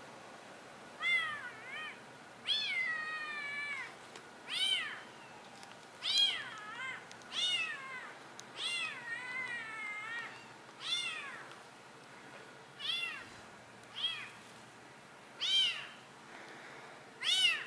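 Young calico cat meowing repeatedly, about a dozen high-pitched meows that each rise and fall, a few of them drawn out longer.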